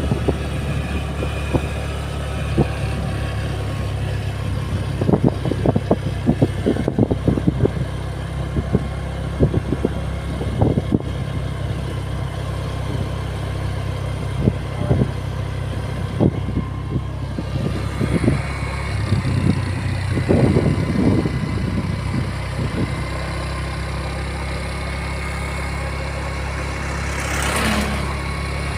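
Motor vehicle engine running with a steady low rumble, overlaid by many irregular knocks and rattles, with one brief swell of noise near the end.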